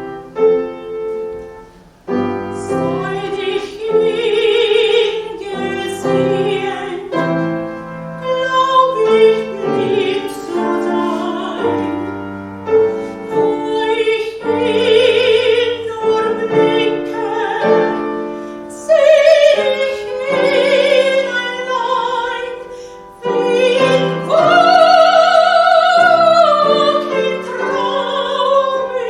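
Classical soprano singing with vibrato over piano accompaniment. The music breaks off briefly about two seconds in, then the sung line continues.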